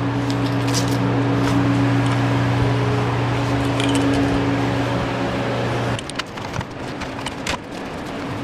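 A steady low machine hum that cuts off suddenly about six seconds in, followed by a few light knocks and rattles.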